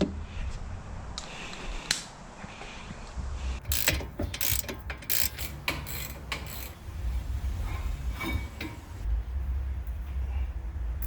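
Socket ratchet clicking in irregular bursts while working a brake caliper bolt, over a low rumble.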